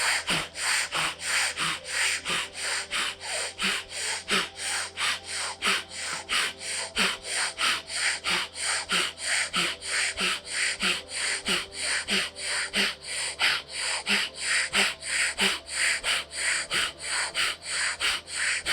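Bhastrika pranayama (bellows breath) through the right nostril: rapid, forceful nasal inhales and exhales in an even rhythm, about three strokes a second.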